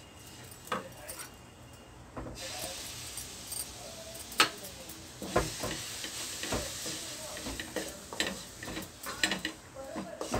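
A wooden spatula stirring and scraping a thick mix of toasted biscuit crumbs and sweetened condensed milk in a nonstick kadai, with scattered knocks of the spatula on the pan, the sharpest about four and a half seconds in. A steady sizzling hiss from the mixture cooking sets in about two seconds in.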